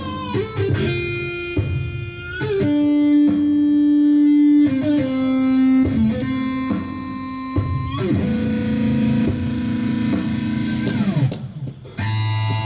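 Electric guitar playing long sustained notes rich in overtones, stepping from pitch to pitch, with a slide down in pitch near the end before a new low note starts.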